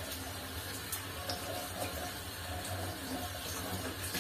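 Kitchen tap running into a stainless-steel sink, water splashing steadily as a glass jar is rinsed under it.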